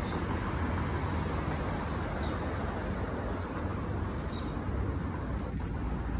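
Steady city road traffic noise, cars passing on a multi-lane street, with a constant low rumble.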